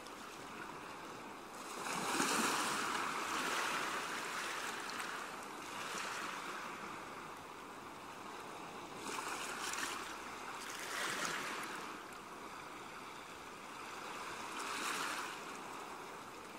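Sea waves washing onto a shore, the surf swelling and falling away every few seconds.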